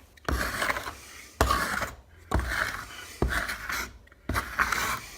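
A hand plastering tool scraping back and polishing a freshly hardened cornice cement patch on a lath and plaster wall, in about five rasping strokes roughly a second apart.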